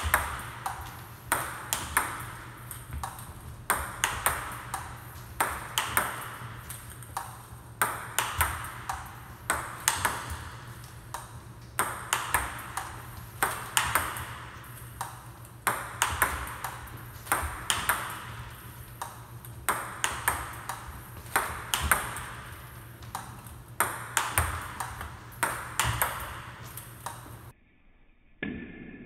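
Multi-ball table tennis drill: a fast run of sharp plastic clicks as balls are fed onto the table, bounce, and are smashed forehand with the paddle, recurring about once a second. A steady low hum runs underneath, and the clicks break off briefly near the end.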